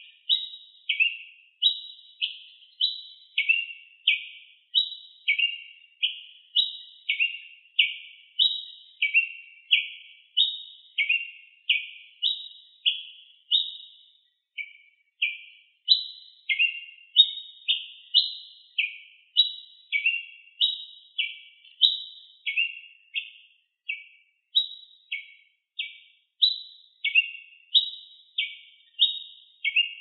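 Ruby-crowned tanager (tiê-preto) singing: a steady, repetitive series of short two-part notes, each a higher note dropping to a lower one, about one and a half a second, with a brief pause about halfway through.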